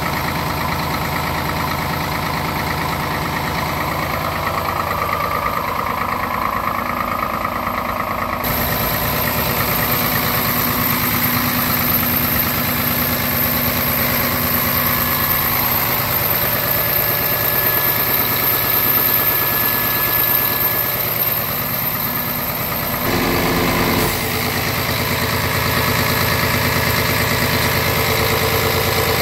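Scania R truck's diesel engine idling steadily, heard close up in the open engine bay. Its tone shifts abruptly twice, about a third of the way in and again near the end.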